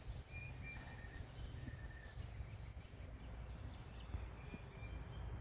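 Faint outdoor ambience: a low, steady rumble with a few short, faint bird chirps in the first two seconds.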